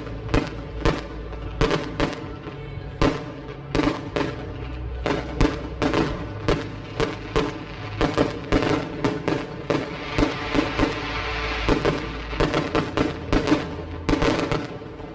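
Fireworks bursting in quick succession, many sharp bangs, with a crackling hiss in the middle, over background music.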